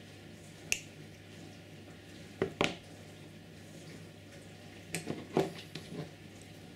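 Sharp clicks and light taps from small hand tools: side cutters snipping a thin pickup wire and being put down on a cutting mat. There is a single click about a second in, a pair around two and a half seconds, and a cluster of several between five and six seconds.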